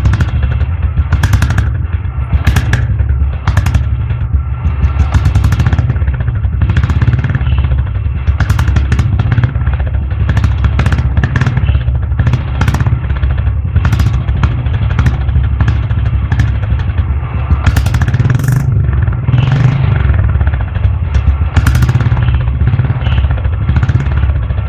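Royal Enfield Classic 350's single-cylinder engine running with its deep, steady exhaust thump.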